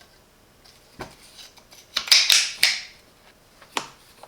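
Water pump pliers being worked by hand: a few sharp metal clicks and a short metallic scrape as the slip joint is slid and the jaws are opened and closed.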